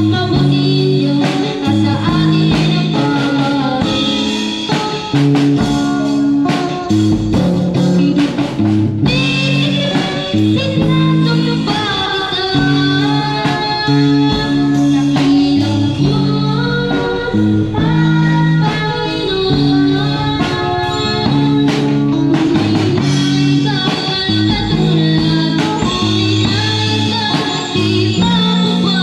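Live band music: a drum kit keeping a steady beat under a guitar, with a strong, repeating bass line and a singing voice, amplified through a portable speaker.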